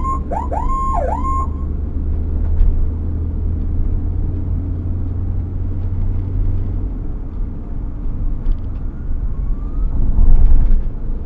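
Emergency vehicle siren giving several quick rising whoops in the first second and a half, with another whoop right at the end. Between them is the steady low drone of a vehicle's engine and road noise, which swells briefly just before the last whoop.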